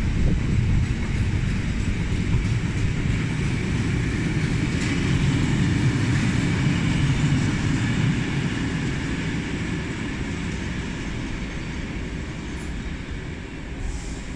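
Freight train's bogie oil tank wagons rolling past on the rails: a steady low rumble with wheel clatter, fading over the last several seconds as the tail of the train goes by.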